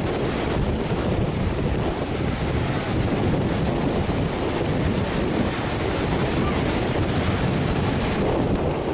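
Rain-swollen mountain stream rushing across the road at a water crossing, a loud steady rush, with wind buffeting the microphone.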